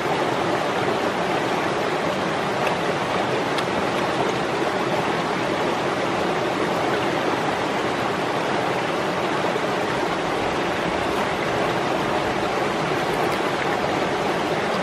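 Steady rushing of a stream, an even unbroken noise.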